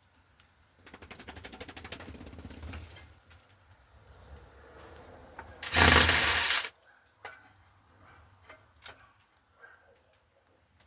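Electric drill running in short bursts: a fast, evenly pulsing run of about two seconds, then a louder burst of about a second some six seconds in, with small knocks between.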